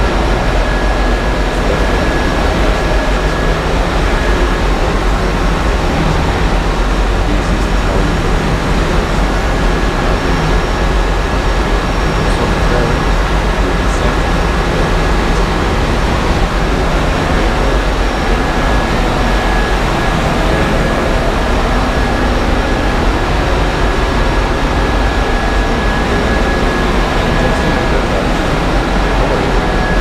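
Ship's engine-room machinery running: a loud, steady din with a low hum and a thin, high steady whine over it.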